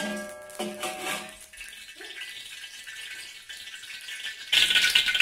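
Metal spatula knocking against an aluminium wok holding heating oil, three short ringing clinks in the first second or so. A loud steady hiss starts abruptly about four and a half seconds in.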